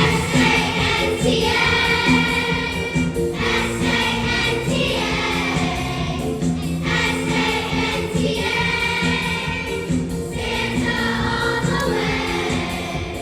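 Choir singing in phrases of a few seconds, with short breaks between them.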